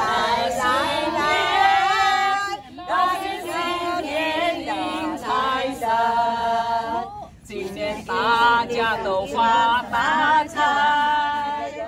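A group of women singing together without accompaniment, with several long held notes.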